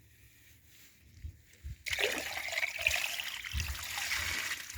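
Water trickling and splashing, starting suddenly about two seconds in, after a couple of faint knocks.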